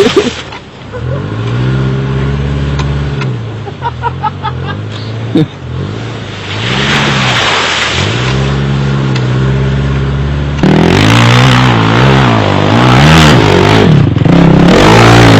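ATV (quad) engine revving up and down as it rides, the revs rising and falling several times, louder after about ten seconds.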